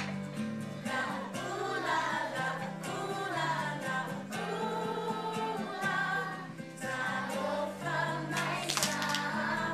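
A group of young children singing a song together over instrumental accompaniment with held low notes. A brief sharp noise near the end.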